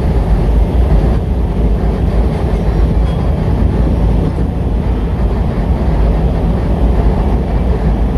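Rail-laden flat wagons of a work train rolling slowly out of a tunnel, with the steady low rumble of the DF4B diesel-electric locomotive pushing them from inside the tunnel.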